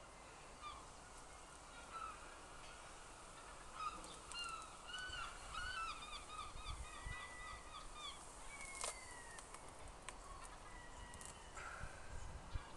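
Birds calling: a quick run of short, repeated calls for several seconds, then a single longer falling call.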